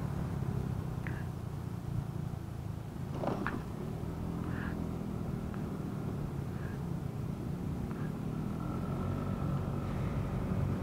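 Motorcycle engine running steadily at low speed while riding, with road noise and a few short faint chirps.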